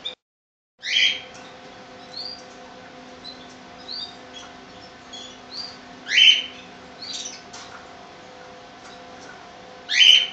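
Young Gloster canaries chirping in short notes, with louder calls about a second in, around six seconds and near the end, over a faint steady hum. The sound cuts out for about half a second just after the start.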